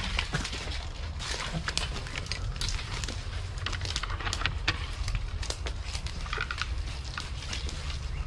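Footsteps crunching and crackling through dry leaf litter and fallen bamboo, an irregular run of short crackles, over a steady low rumble.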